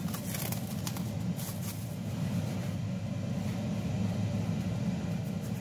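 Steady low background rumble, with a few faint soft taps in the first second or so.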